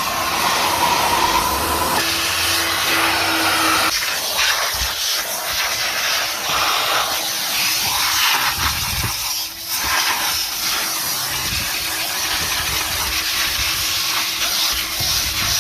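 Kerstar KV25-2 twin-motor vacuum cleaner running with a loud, steady rush of air and a whine; about four seconds in the whine drops away and the air noise turns uneven as the nozzle works over the car.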